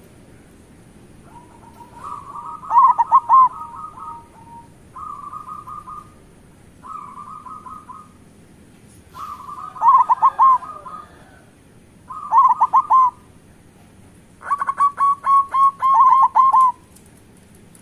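Zebra doves (perkutut) cooing: about six phrases of rapid staccato coos, the loud phrases ending in quick falling notes and two softer trilling phrases between them. The last phrase is the longest.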